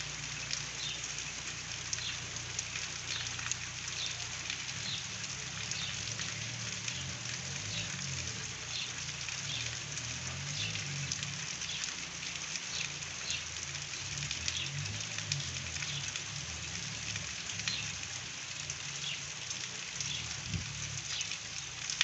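Steady rain falling, with frequent short ticks of single drops landing.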